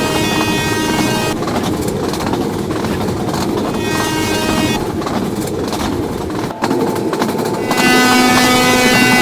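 Train running at speed on the rails: a loud rumble with clatter. A steady, many-toned pitched sound is present for about the first second, drops away, and returns strongly near the end.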